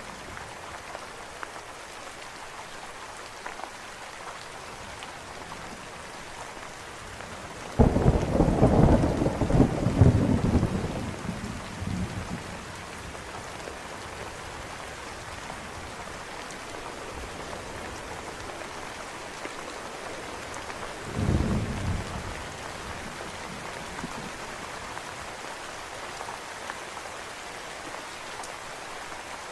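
Steady heavy rain falling, with a sudden loud thunderclap about eight seconds in that rumbles for several seconds, and a shorter, quieter clap of thunder a little over twenty seconds in.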